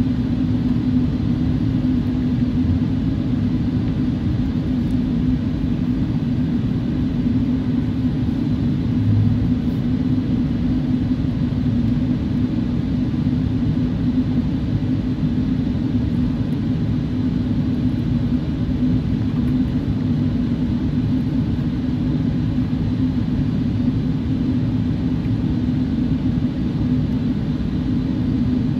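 Steady rumble inside the upper-deck cabin of a Boeing 747-8 taxiing, its four GEnx engines running near idle, with a constant low hum over the noise.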